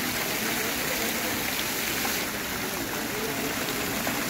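Jets of an ornamental fountain spraying and splashing steadily into its shallow pool, a rain-like patter of many falling streams.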